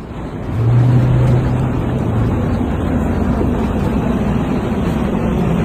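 A motor vehicle running: a low steady hum over a broad rushing noise that swells in during the first second.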